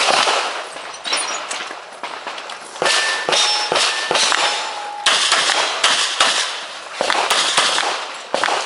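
Gunshots from an S&W 610 revolver, fired in quick strings with short breaks between them. A few brief ringing tones sound in the middle.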